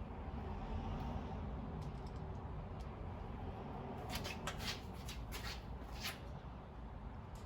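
Light handling clicks and taps, bunched together about four to six seconds in, over a steady low hum.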